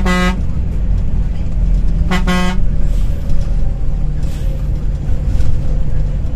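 Two short blasts of a vehicle horn, one right at the start and one about two seconds in, over the steady low rumble of a moving coach.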